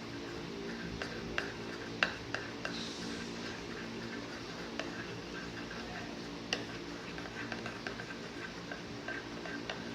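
Scattered light clicks and taps, the sharpest about two seconds in and again past six seconds, as a utensil knocks against a bowl while glue and food colouring are stirred. Underneath, quiet background music holds steady sustained notes.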